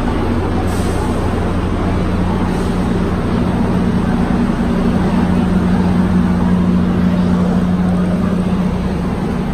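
Steady drone of a running vehicle engine, a low hum over continuous rumbling noise, swelling slightly midway.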